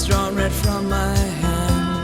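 Background music: an instrumental passage of a pop song with a steady beat and sustained keyboard-like tones.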